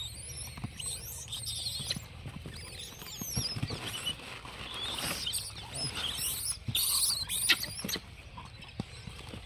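Many overlapping high-pitched chirps and squeaking calls from small animals, with scattered light taps and clicks among them.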